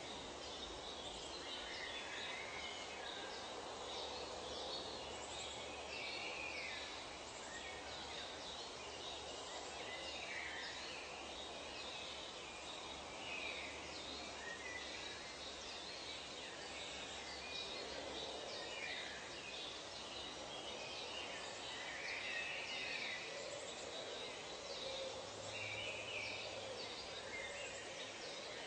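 Nature ambience: many birds calling with short chirps and trills, scattered throughout, over a steady background hiss.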